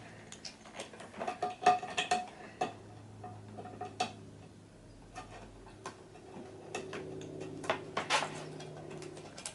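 Irregular clicks and light knocks of small metal and plastic screen parts being handled and fitted by hand, with a brief ringing tone about two seconds in and a low steady hum underneath.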